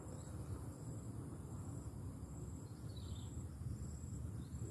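Insects trilling high and thin, the trill pulsing on and off every second or so, over a faint low rumble.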